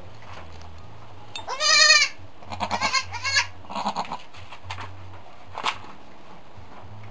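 Goat bleating: one loud, wavering bleat about two seconds in, followed by several shorter, softer calls, then a single sharp tap near the end.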